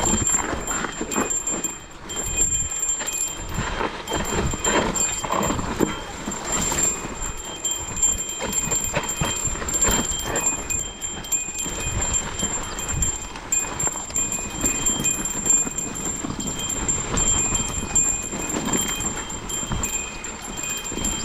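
Specialized Kenevo SL e-mountain bike descending a dry dirt singletrack: tyres rolling and crunching over dirt and stones, with irregular knocks and rattles as the bike jolts over bumps. A thin steady high whine runs underneath.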